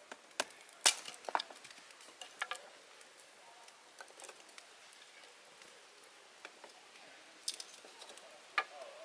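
A few scattered light clicks and knocks of small objects being handled, the loudest about a second in, with long quiet gaps between them.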